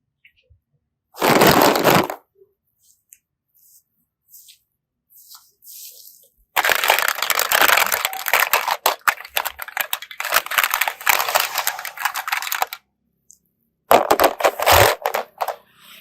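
Crunchy crackling and crushing of slime being squeezed by hand, in three bouts: a short one about a second in, a long one through the middle, and a short one near the end.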